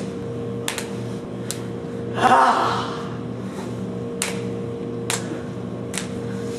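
A person's loud breathy gasp about two seconds in, with several short sharp clicks spread before and after it, over a steady low hum.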